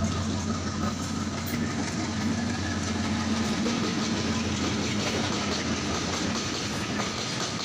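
Train running on rails: a steady low rumble with the clickety-clack of its wheels over the rail joints.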